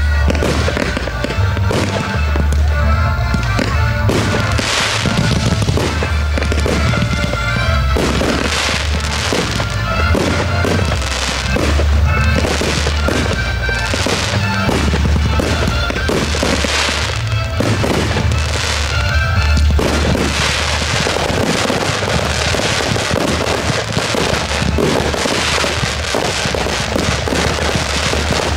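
A fireworks display: shells and rockets bursting and crackling over music with a strong bass. About two-thirds of the way through, the bursts thicken into a dense, continuous crackle.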